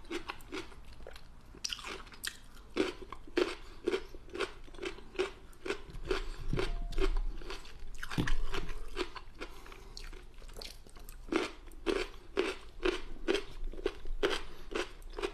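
Close-miked chewing of crunchy food, a steady run of crisp crunches about two a second, with a louder, less regular stretch around the middle.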